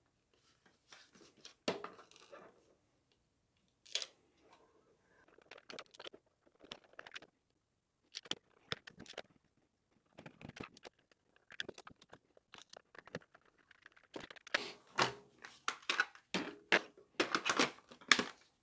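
Scattered clicks, scrapes and knocks of a plastic gel-blaster drum magazine being put back together by hand: the cover pressed on and its screws driven in with a small screwdriver. The handling noise comes thicker and louder over the last few seconds as the drum is offered up to the blaster.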